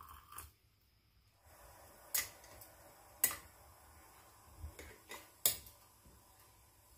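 A metal spoon stirring corn in a glass mason jar, clinking sharply against the glass about five times at uneven intervals, after a brief faint trickle of hot water being poured into the jar at the start.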